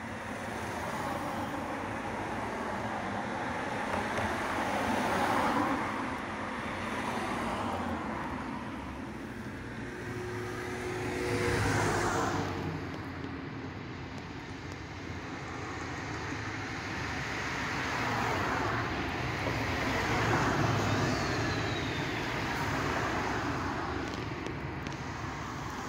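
Night street traffic: vehicles pass one after another, each a swell of tyre and engine noise. The loudest is a large vehicle passing close about twelve seconds in.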